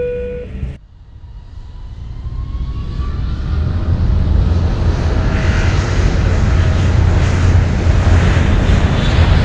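Tail of a cabin chime's low note, cut off under a second in, then an airliner's turbine engines spooling up for takeoff: a faint rising whine and a rumble that builds over about three seconds into a steady loud roar.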